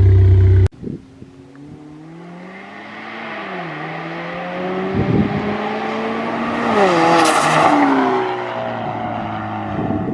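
Ford Mustang EcoBoost's straight-piped 2.3-litre turbocharged four-cylinder at wide-open throttle, approaching and passing. The engine note climbs, drops twice at upshifts, is loudest as the car goes by about seven seconds in, and then falls in pitch as it fades. A loud low rumble cuts off sharply in the first second.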